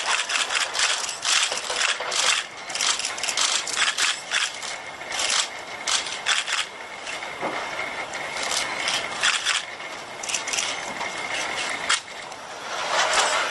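HRP-4 humanoid robot's electric joint motors and gears running as it moves through poses: a dense clatter of mechanical clicks and rattles over a steady high whine.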